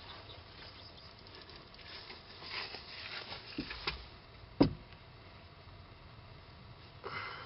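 Footsteps and rustling close to the microphone as a person walks up and bends over it, with one sharp knock about halfway through.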